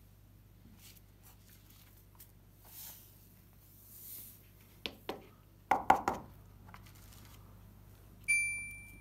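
Loose coloured sand swishing as it slides off a tilted sand-painting card, then about five sharp knocks as the card is rapped to shake off what is left, the loudest three close together. Near the end a bright chime rings once and fades.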